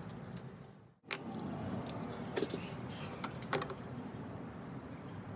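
Scattered small clicks and clinks of tools and fittings being handled under the bonnet while a hose is worked off, against a steady low background; the sound cuts out briefly about a second in.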